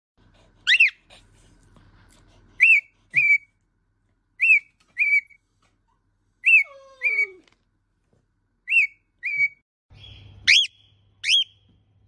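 Female cockatiel giving its contact call: short, loud, whistled chirps, each rising and falling, mostly in pairs about half a second apart, repeated about six times.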